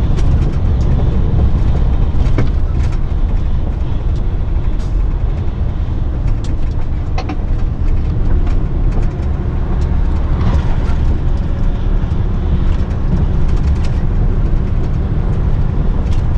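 Cab interior of a Mercedes-Benz truck on the move over a rough, unfinished road: a steady low rumble of engine and tyres, with scattered small rattles and knocks from the cab as the truck shakes.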